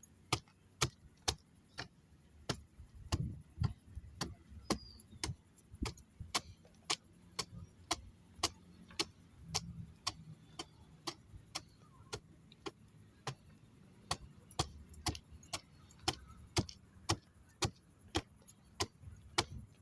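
Hammer tapping steadily along a wooden timber, about two strikes a second, knocking out wood that has rotted from water damage.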